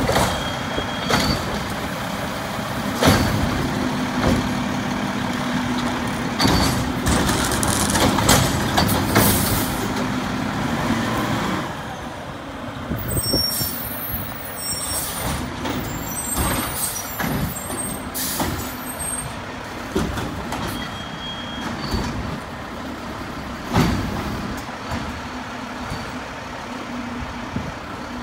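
Mack LEU garbage truck with a Bridgeport Ranger automated side-loader working a cart pickup: the engine runs with a steady whine for the first ten seconds or so while the hydraulic arm works, with clanks and bangs from the arm and cart. The truck then pulls ahead more quietly, with scattered knocks and short air-brake hisses.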